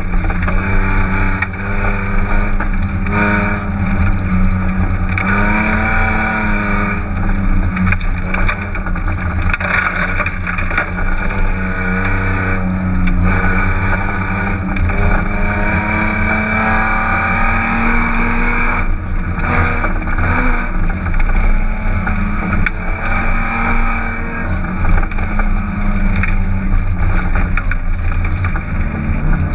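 1999 BMW 328is (E36) rally car's 2.8-litre straight-six heard from inside the cabin, revving hard at full throttle, its pitch climbing and dropping again and again with brief lifts between. The exhaust is disconnected at the midpipe. Steady tyre and road noise from the dirt stage lies underneath.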